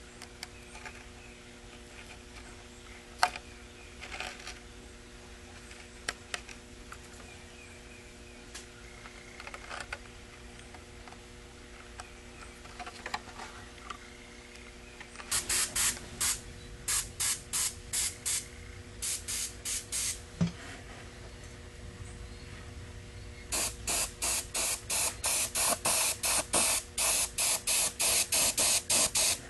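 Gravity-feed airbrush spraying orange paint in short hissing bursts, laying down the first coat of orange. It starts about halfway through after some light clicks and knocks of handling, and near the end the bursts come quickly, about three a second.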